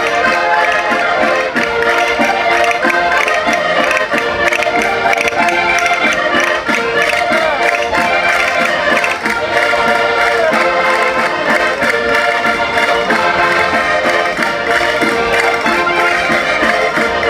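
Several concertinas playing a lively chula folk dance tune over a fast, steady beat.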